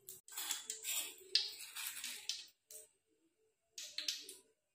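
A metal spoon scraping and tapping ground spice paste in a stone mortar: a series of light, irregular scrapes and clicks with a short pause in the middle.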